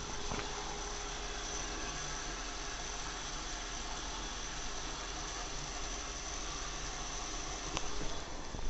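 Water running steadily into a bathtub, an even rushing hiss, with a couple of light knocks near the end.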